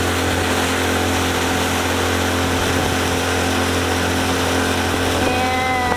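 Small speedboat's engine running steadily under way, with a constant rush of wind and water over it.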